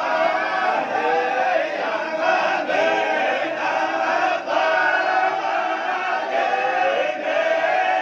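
A large group of men chanting the Quran together in unison, many voices blended into one continuous recitation with long held and gliding notes.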